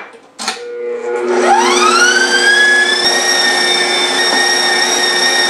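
Stand mixer driving a food grinder attachment: a click as it is switched on about half a second in, then a motor whine that rises in pitch over a second or so and runs steady while celery is pushed through the grinder.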